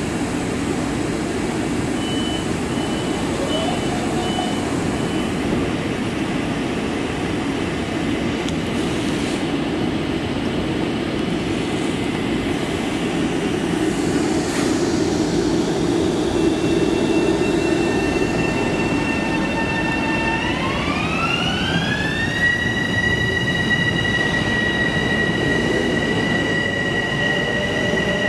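Bombardier M7 electric multiple-unit train pulling out of the station and picking up speed, with wheels rumbling on the rails. A short run of high beeps sounds a few seconds in. In the second half the propulsion whine comes in as several steady high tones that glide up together and then hold, and a lower whine climbs toward the end.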